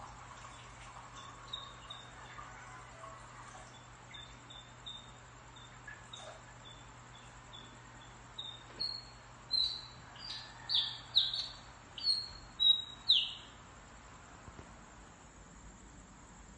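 A bird singing: a run of short, high notes, about two a second, that start faint and grow steadily louder. It ends in several loud notes that slide downward, then stops about three seconds before the end.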